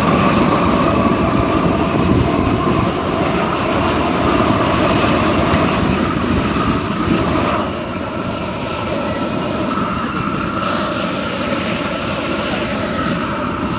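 Propane wand torch burning with a loud, steady rush of flame, blasting into a kettle grill to light the charcoal. It drops slightly in level about eight seconds in.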